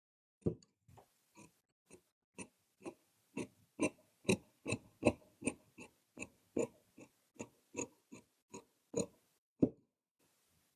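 Tailor's shears cutting through fabric, a steady run of crisp snips at about two a second, some louder than others, ending with about a second of quiet.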